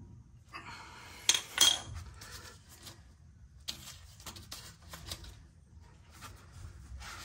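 Two sharp metallic clinks about a second and a half in as a hand tool comes off the spindle nut of a disc brake hub. Lighter scattered metal ticks and rubbing follow as the new rotor and hub are turned by hand on the freshly adjusted wheel bearings.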